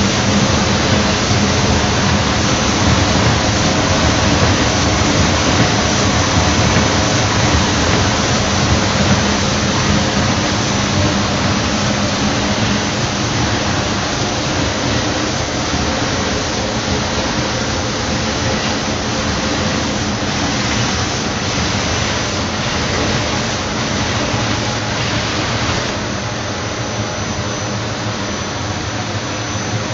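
Bizzozero Mica TC 1600 slitter-scorer with vacuum belt feeder running: a steady rushing machine noise with a low hum, slightly quieter in the last few seconds.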